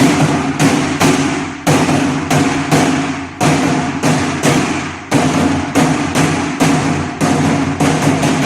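Nanta drums struck with sticks in a steady, fast repeating pattern, a practice of the Korean train rhythm (gicha jangdan). Each stroke rings on in the drumheads.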